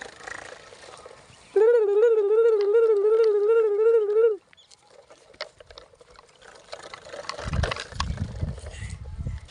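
A loud warbling electronic tone, wavering in pitch about three times a second, sounds for nearly three seconds and then cuts off suddenly. Low rumbling with scattered knocks follows near the end.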